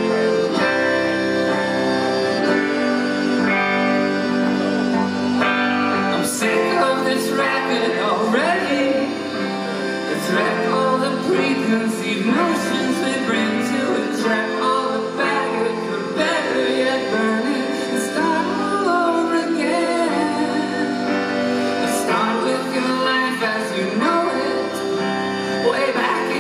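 A live rock band playing: electric guitar, drums with cymbal strokes, and held chords, with a lead vocal singing over them.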